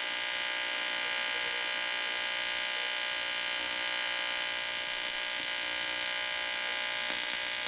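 TIG welding arc from an ARCCAPTAIN 200P AC/DC TIG welder, buzzing steadily and unbroken as a joint is welded with filler rod.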